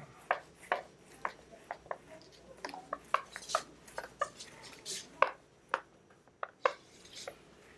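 Whiteboard eraser wiping the board in quick strokes: an irregular run of short knocks and scrubbing rubs.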